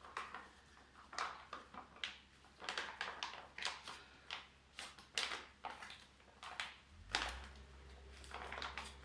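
Irregular clicks, taps and rustles of hand work with tools and parts during a motorcycle oil change, with a low steady hum coming in about seven seconds in.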